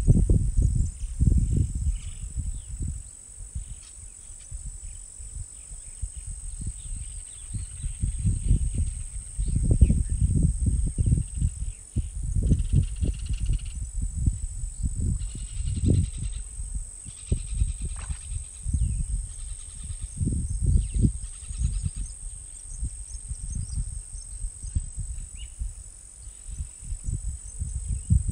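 Natural outdoor ambience: a steady high-pitched insect drone with scattered bird chirps, over an uneven low rumble that swells and fades.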